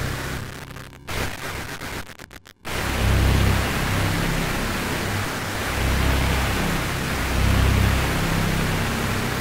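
Orchestral bass sample played back through the Prisma multi-effect plugin, turned into a dense noisy hiss over a deep, unevenly pulsing low rumble. The sound stutters and drops out in short chops from about half a second to nearly three seconds in, then the full texture comes back.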